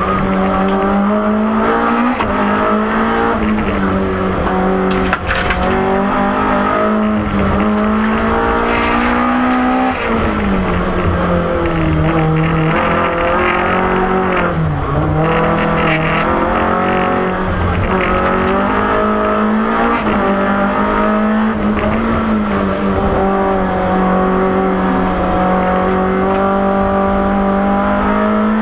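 BMW M3 E30 Group A rally car's four-cylinder engine, heard from inside the cabin at full stage pace, its pitch climbing and dropping again and again through gear changes and lifts, with a deeper drop in revs around the middle.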